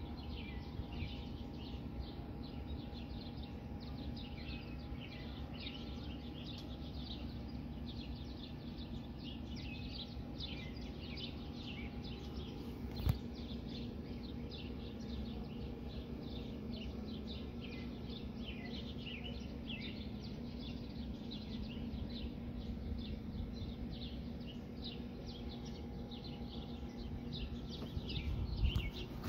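Many small birds chirping busily and continuously, over a steady low background hum. A single sharp click about halfway through.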